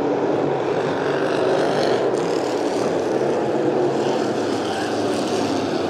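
Engines of a pack of hobby stock race cars running at speed around a dirt oval, a steady, loud combined engine noise.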